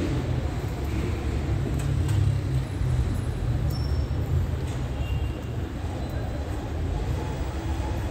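Steady low rumble of outdoor background noise, with a few faint brief high chirps.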